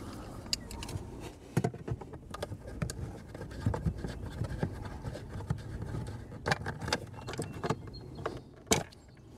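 Scattered clicks, taps and scrapes of hands and pliers working at a septic system's electrical control box, loosening a cord grip and freeing wires from the terminal strip. A sharp click near the end is the loudest.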